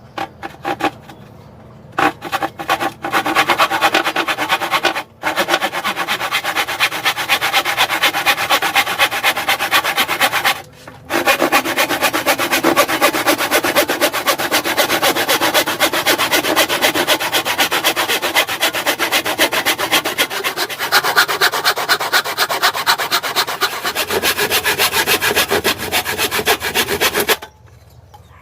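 Hasston 18-inch rip saw cutting through wood by hand in steady, rapid rasping strokes. It starts with a few short strokes, breaks off briefly twice, and stops shortly before the end.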